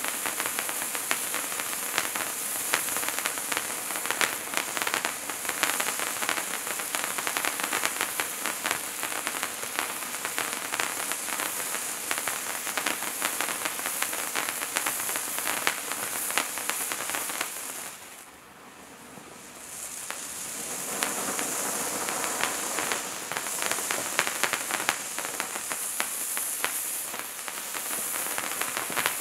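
Hand-held firework fountain (Wizards Wands) burning: a steady rain-like hiss of spraying sparks thick with fine crackles. The sound drops away briefly about eighteen seconds in, then builds back up.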